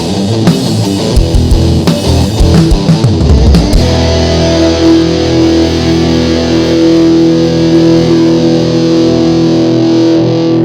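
Rock music with distorted electric guitar: a rhythmic, hard-hitting passage for the first few seconds, then one chord held and ringing until it stops near the end.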